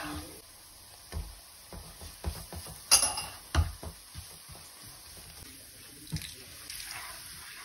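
Plastic spoon scraping and tapping against a nonstick pan while sautéed onion and pepper are stirred, with a couple of sharper knocks around the middle. Near the end milk is poured into the pan in a soft, steady stream.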